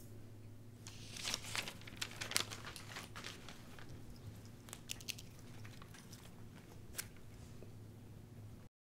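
Faint rustling and crinkling of a paper legal pad being handled, a scatter of small soft clicks over a low steady room hum. The sound cuts off suddenly near the end.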